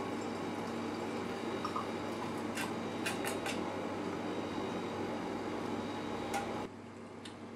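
A steady mechanical hum from lab equipment, with a few sharp metallic clinks of a spoon against a stainless steel bowl around the middle and once more near the end. The hum drops away abruptly near the end.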